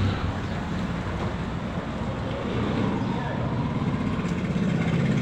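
A motor vehicle engine running steadily at idle, with street traffic noise.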